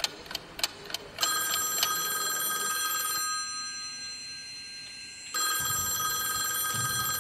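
A few sharp ticks, then about a second in a bell starts ringing with several clear, steady tones. It drops back around three seconds in and rings loud again from about five seconds.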